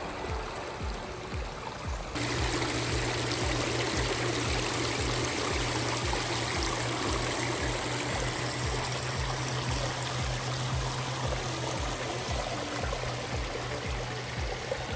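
Water running and trickling over the boulders of a pondless stream and waterfalls, under background music with a steady beat. The water gets louder and brighter about two seconds in.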